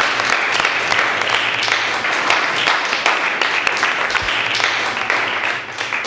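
A roomful of students clapping their hands in applause, many quick claps blended together; it thins out and fades near the end.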